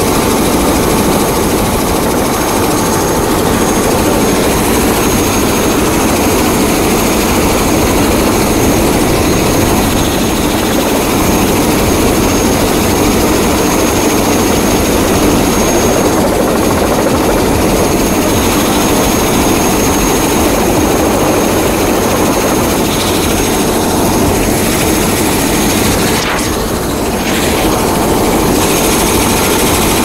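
Tour helicopter's turbine engine and rotor running: a loud steady rush of noise with a thin high whine over it.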